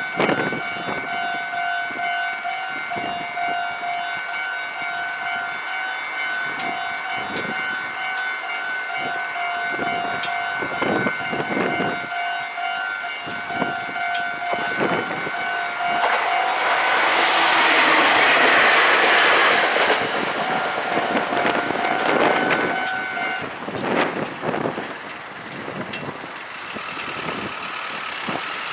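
Level crossing alarm ringing with a steady repeating two-tone pattern while a Meitetsu 1800 series electric train passes. The train's rush of wheel and running noise swells to its loudest about two-thirds of the way through. The alarm cuts off shortly after.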